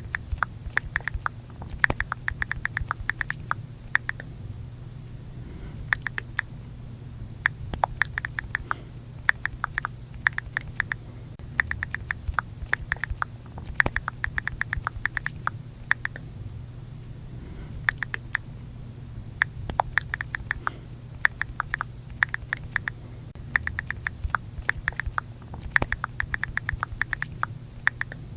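iPhone on-screen keyboard click sounds from typing, in quick runs of taps separated by short pauses, over a faint low hum.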